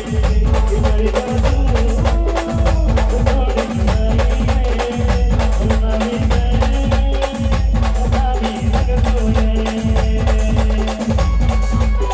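Khandeshi band playing an instrumental passage of folk dance music: a melody in held notes over loud percussion and a deep, pulsing bass.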